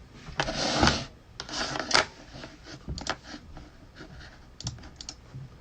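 Rustling swishes, two of them in the first two seconds, followed by scattered sharp clicks and taps, with a few near the end.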